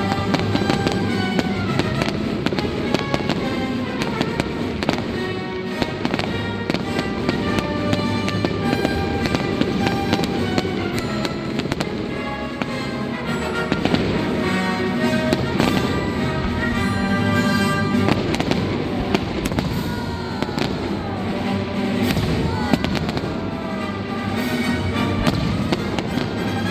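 Fireworks bursting and crackling in a dense, continuous barrage over loud music. In the second half a few whistling tones arc up and down in pitch.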